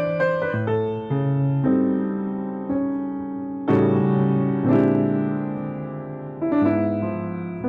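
Piano playing slow, sustained chords, each fading after it is struck, with two louder chords near the middle.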